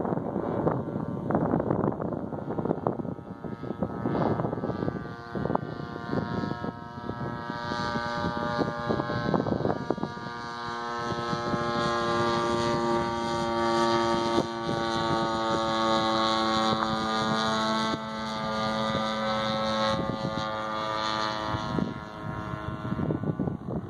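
NGH 35cc two-stroke gas engine of a quarter-scale Piper Cub model airplane droning overhead, its pitch drifting slowly lower. Gusts of wind on the microphone dominate the first few seconds.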